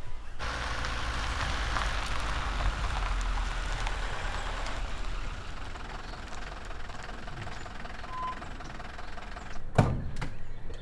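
Delivery van driving along a road and pulling up, its engine running steadily and easing off about halfway through. A sharp thump near the end.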